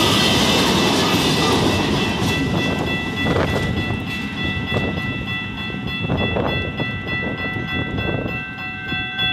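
The last cars of a freight train rumble and clatter over the crossing, fading within the first few seconds. A railroad crossing bell rings on steadily through the rest, still sounding with the gates down after the train has cleared.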